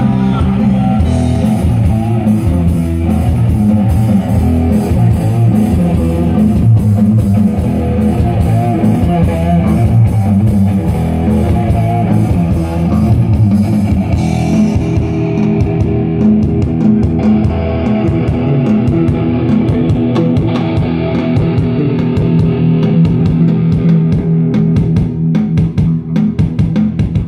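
Live rock band playing an instrumental passage: electric guitars, bass guitar and drum kit, with no vocals. About halfway through the bright top end drops away, leaving guitar, bass and steady drum hits.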